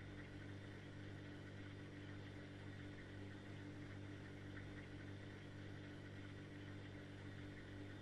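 A steady low hum with a faint hiss above it, holding an even level throughout.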